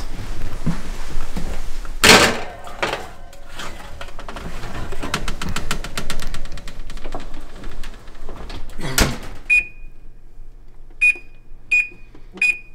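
A metal roasting pan of potatoes clatters onto an oven rack and the oven door shuts with a thump, then an Amana electric range's keypad gives four short, high beeps as the cooking timer is set.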